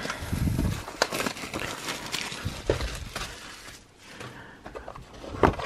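Plastic shrink-wrap crinkling as it is pulled off a cardboard trading-card booster box, with scattered clicks and knocks of the box being handled. It goes quieter about four seconds in, and a few clicks follow near the end.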